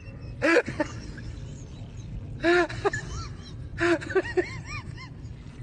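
A husky vocalising in short whining howls that rise and fall in pitch, three separate calls followed by a quick run of shorter yips about four seconds in.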